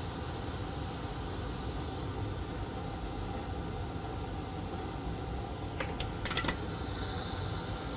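Hot-air rework station blowing at maximum airspeed, a steady hiss, while a BGA chip is lifted off the motherboard. A few light clicks come about six seconds in.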